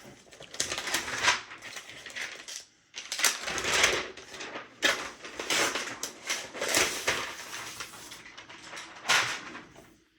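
Packaging from a new MacBook Pro box rustling and crinkling in irregular bursts as it is handled and unwrapped.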